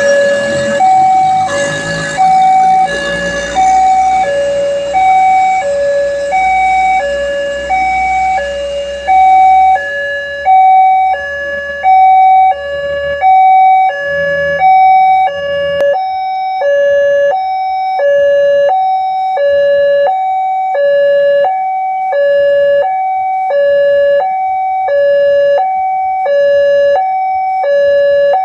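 Railway level-crossing alarm sounding a two-tone hi-lo electronic siren, alternating between a lower and a higher tone about once a second. A broad rumble lies under it for about the first ten seconds and then fades, leaving the alarm alone.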